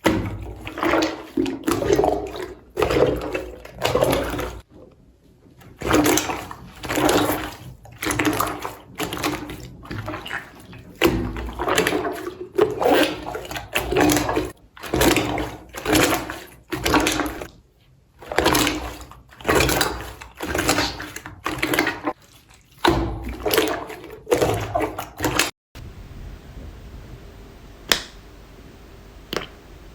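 Slime being squeezed and kneaded by hand: wet squelching squishes, about one a second. Near the end it gives way to a quieter stretch with two sharp clicks.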